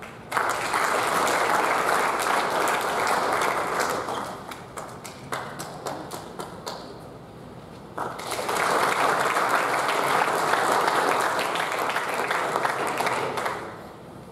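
Audience applauding in two rounds. The first burst of clapping dies away after about four seconds to scattered single claps. A second round starts about eight seconds in and fades near the end.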